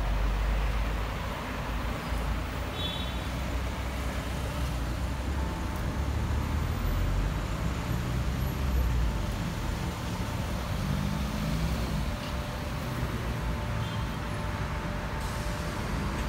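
Road traffic: motor vehicles driving past, a steady rush of tyre and engine noise with a low engine rumble that swells as vehicles go by.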